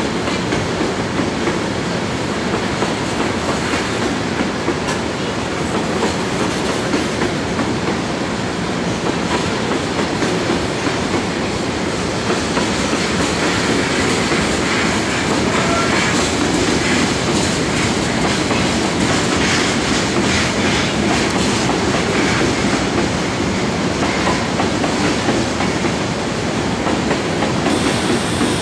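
Freight train of LPG tank cars rolling steadily past, steel wheels running on the rails.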